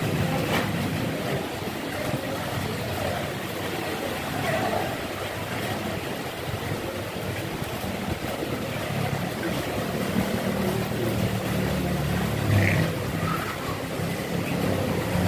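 Steady rain falling, with a motor vehicle's engine rumbling past in the second half.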